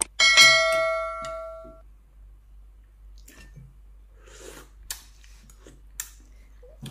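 A bright bell chime rings once and fades out over about a second and a half: the notification-bell sound effect of a subscribe-button animation. Quiet spoon clicks and soft eating sounds follow.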